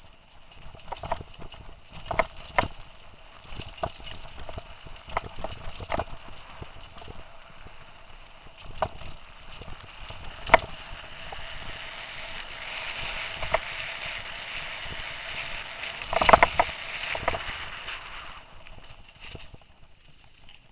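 Mountain bike riding fast over a rough dirt singletrack: irregular knocks and rattles as it bounces over bumps and roots, with a hiss of tyres and brushing vegetation that swells past the middle, and the heaviest clatter about three-quarters of the way through.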